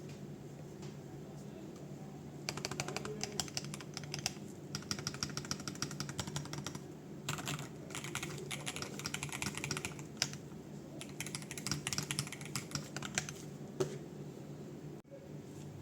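Typing on an Aula Win60HE Max hall-effect keyboard with UR Ice Ultra switches, its stock foam and PBT doubleshot keycaps. Quiet at first, then fast runs of keystrokes starting about two and a half seconds in, with brief pauses between runs, thinning out near the end.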